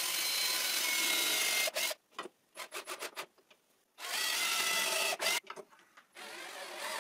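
Cordless drill-driver running under load into the wooden back slat of a chair: two runs of whining motor, about two and one and a half seconds long, with clicks and knocks between and a quieter short run near the end.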